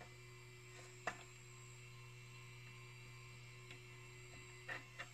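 Faint steady hum from inside an opened Akai S6000 sampler, with small sharp clicks of a plastic fan connector being handled and plugged in: the sharpest about a second in, and two more close together near the end.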